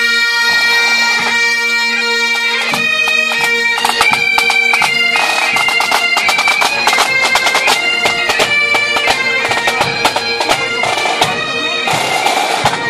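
Marching pipe band playing: Highland bagpipes, their steady drones under the chanter's melody, with side drums beating a rapid rhythm.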